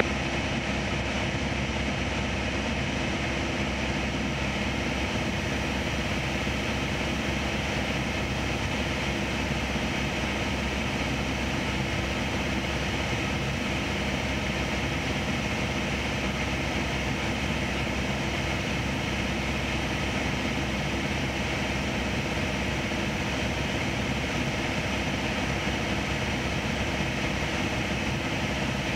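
Piper PA-28 Archer's four-cylinder Lycoming O-360 engine and propeller running steadily in flight, heard from inside the cabin as an even drone.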